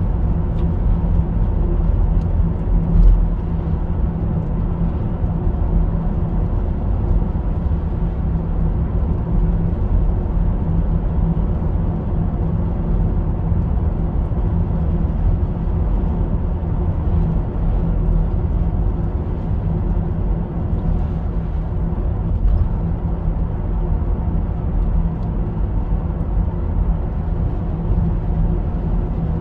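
Steady road noise inside a moving car's cabin: a low engine and tyre hum on a wet road.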